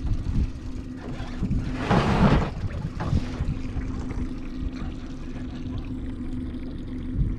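Outboard motor idling with a steady hum, with water sloshing against the boat's hull and wind on the microphone. A brief rush of splashing noise comes about two seconds in.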